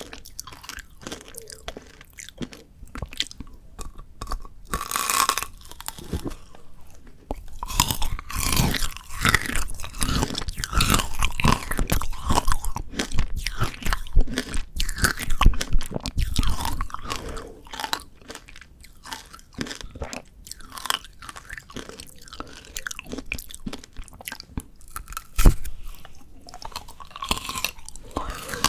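Close-miked crunching and chewing of frozen Shine Muscat grape tanghulu: the hard candied-sugar shell and frozen grapes cracking between the teeth in quick, irregular crunches. The crunching is busiest through the middle, with one sharp louder crack near the end.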